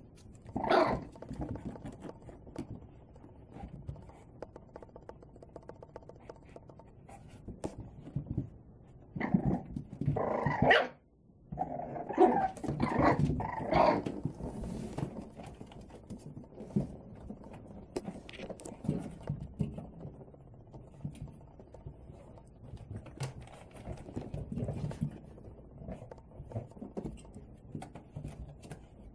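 Boston Terrier puppies barking in play, with a burst about a second in and a cluster of louder barks between about 9 and 14 seconds in. Quieter scuffling of their paws and bodies fills the gaps.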